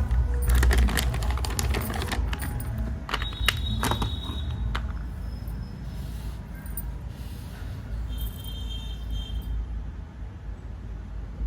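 Clicks and crackles from objects being handled close to the microphone, dense in the first half and then thinning out, over a steady low rumble.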